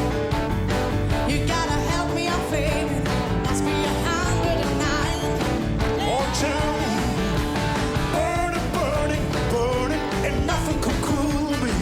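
Upbeat rock and roll song with singing over a full band backing.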